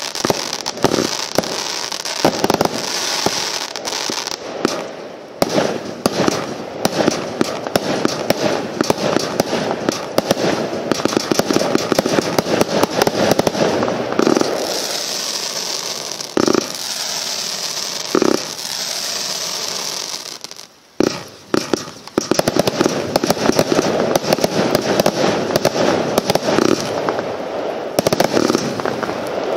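Nuclear Shockwave 600-shot compound firework cake firing a rapid, dense barrage of shots and aerial bursts, with a brief lull about twenty-one seconds in.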